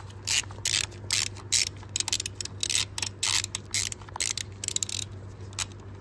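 Hand socket ratchet clicking in quick back-and-forth strokes, about three a second, as it runs down and tightens a bolt.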